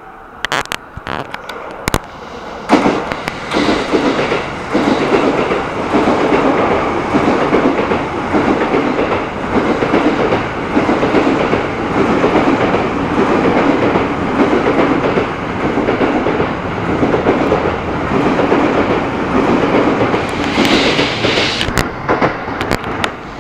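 A 15-car JR East E233-series and E231-series electric train running through the station at speed without stopping. Its wheels clatter over the rail joints in a steady, repeating rhythm as the cars go by. It sounds its horn as it comes in.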